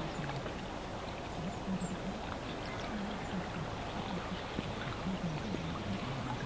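Dawn lakeside ambience: a steady hum of distant road traffic, with the faint muffled burble of a radio voice and scattered small calls from birds on the water.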